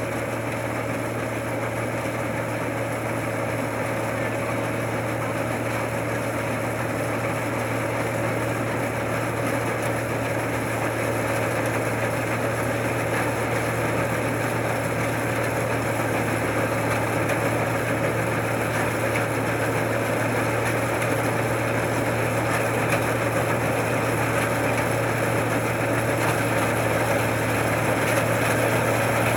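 Combine harvester engine running steadily, with a constant low drone, growing gradually louder.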